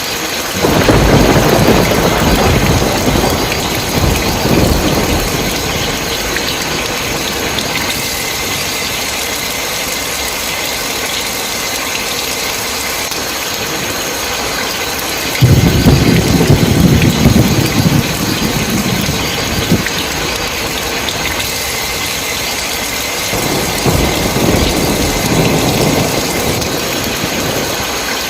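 Steady heavy rain with three rolls of thunder: one starting about a second in, a louder one that breaks in suddenly just past halfway, and a softer one near the end.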